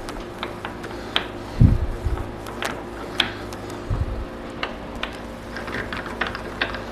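Irregular light metallic clicks and taps as a steel nut is worked off the left-hand-threaded saddle feed screw of a Burke #4 horizontal milling machine, with two dull thumps, the louder about a second and a half in. A steady low hum runs underneath.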